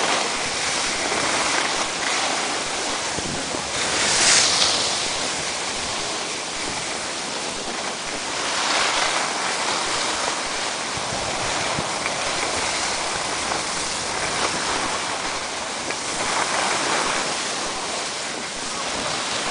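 Steady rushing noise of wind on the microphone and skis sliding over packed snow while skiing downhill, swelling several times and loudest about four seconds in.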